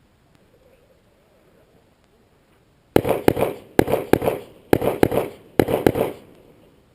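Rapid string of gunshots, in four close groups less than a second apart starting about three seconds in, each ringing off in an echo.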